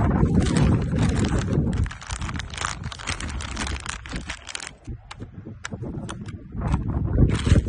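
4WD RC off-road car driving over loose dirt and gravel: tyres crunching and grit clicking, loud with a deep rumble at first, then thinner scattered clicks for a few seconds, and loud again near the end.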